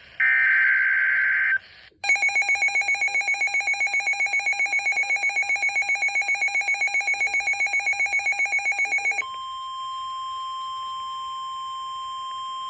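NOAA Weather Radio emergency alert. It opens with a short burst of screeching SAME data, then a rapid pulsing alarm beep at about seven beeps a second. About nine seconds in this switches to the steady 1050 Hz warning alarm tone, which is held.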